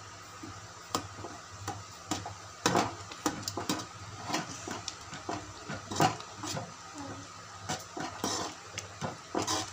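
Slotted steel spoon stirring semolina into an aluminium pot of boiling liquid, knocking and scraping against the pot's sides in irregular clinks, the loudest about three, six and nine and a half seconds in.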